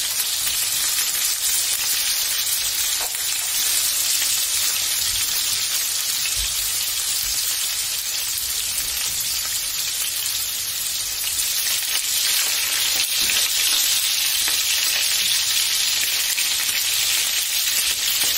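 Chicken skewers frying in oil in a pan, a steady high sizzling hiss.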